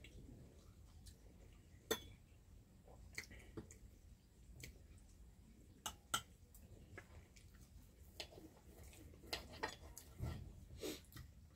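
Knives and forks clinking and scraping on plates as steak is cut and eaten: quiet, irregular clicks, with the sharpest clinks about two seconds in and about six seconds in.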